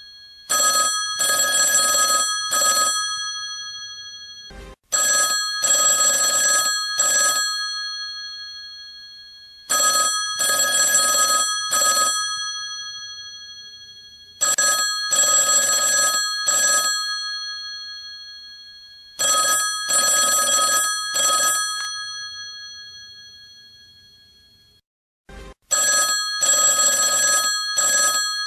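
Old telephone's bell ringing in bursts of about two seconds, repeating roughly every five seconds, the bells humming on and fading away between rings.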